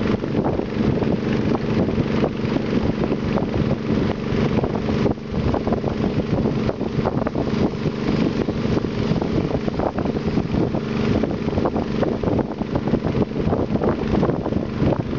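Long-tail river boat's engine running steadily at cruising speed, a constant droning tone, with wind rushing over the microphone and water hissing past the hull.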